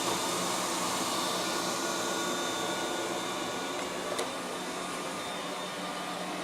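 Liectroux B6009 robot vacuum cleaner running as it cleans: a steady motor and suction hum with a constant whine, and a single click about four seconds in.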